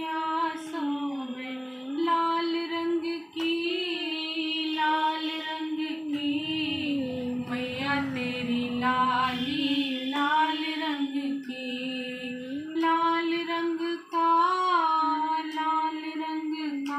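A woman singing a Hindi devi geet, a devotional song to the goddess, in a single solo voice, holding long notes that bend up and down, with short breaths between lines.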